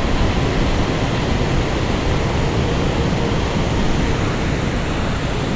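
Steady, loud rush of falling water, an even noise that stays much the same throughout and is heaviest at the low end.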